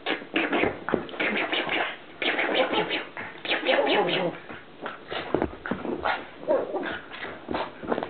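A pug dog making strange noises while playing, in a rapid string of short, irregular bursts with brief pauses around two, five and seven seconds in.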